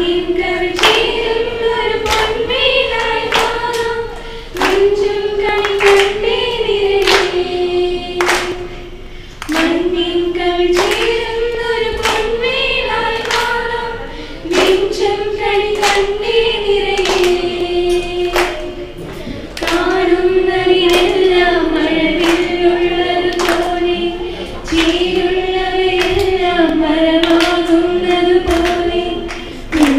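A group of girls singing a song together in unison, in phrases of about five seconds with short breaths between them. A regular beat of sharp clicks runs under the singing.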